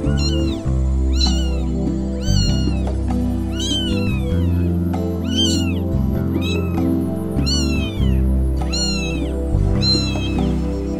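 Newborn kitten, about a day old, crying in high-pitched mews about once a second, each call rising and then falling in pitch, as it is offered a milk bottle. Background music plays underneath.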